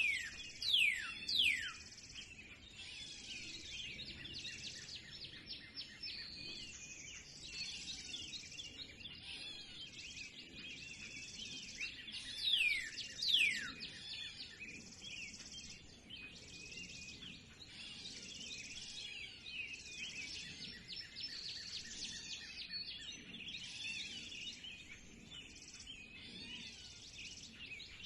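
Birds calling in a dense chorus of small overlapping chirps. Loud, quick downward-sliding whistled calls stand out twice, at the start and again about halfway through.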